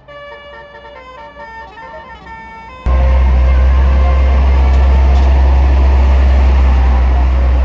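A flute-like background melody, then about three seconds in a sudden cut to a loud, steady low rumble of a large vehicle's engine running close by.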